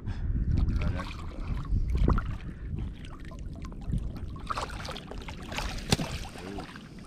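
Shallow saltwater sloshing and splashing as a hooked redfish thrashes at the surface and is scooped into a landing net, with one sharp splash about six seconds in. Low rumbles of water movement fill the first two seconds.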